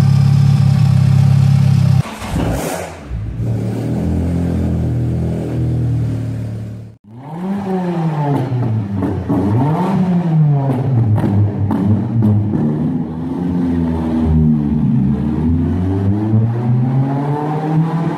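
VW Jetta Mk2 engine idling steadily, then, after a cut, revved again and again, its pitch climbing and falling repeatedly. The sound drops out briefly about seven seconds in.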